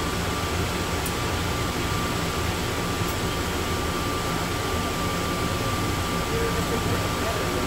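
Cabin noise of the Atlanta airport Plane Train, a rubber-tired automated people mover, running at steady speed through its tunnel: an even rumble with a steady high whine over it.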